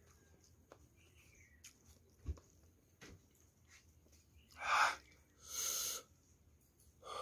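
A man's hard breathing while burning from a very hot pepper: a heavy breath out about halfway through, then a hissing breath, and another near the end. Faint mouth clicks from eating in between.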